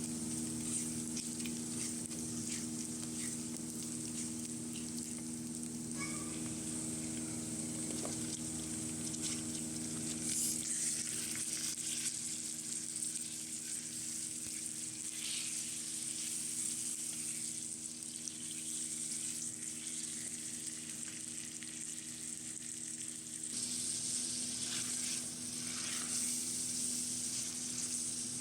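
Food sizzling as it fries in a pan, with occasional scrapes of a spoon stirring it, over a steady low hum.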